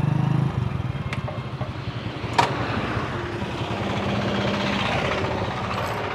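A motor vehicle's engine running steadily, with one sharp click about two and a half seconds in.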